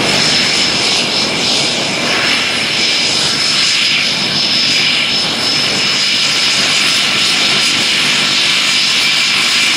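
Twin-turboprop Beechcraft King Air taxiing close by, both turbine engines running steadily at taxi power: a constant high turbine whine over the propeller noise.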